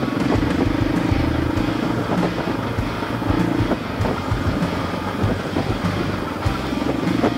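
KTM 500 dirt bike's single-cylinder four-stroke engine running under way, the revs rising and falling as the throttle opens and closes. Occasional sharp knocks and rattles come from the bike working over rough ground.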